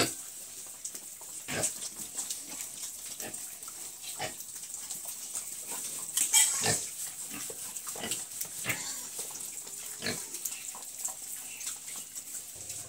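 Young pigs giving short, scattered grunts as they nose at feed on a concrete pen floor, with a louder burst about six seconds in.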